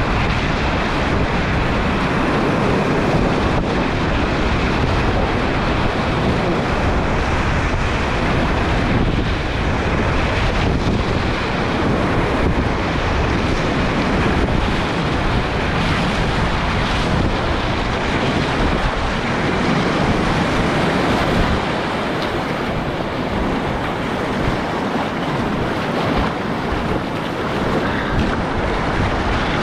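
Whitewater rapids, a steady loud rush of churning water as a kayak paddles through them, with water splashing over the kayak's bow and deck.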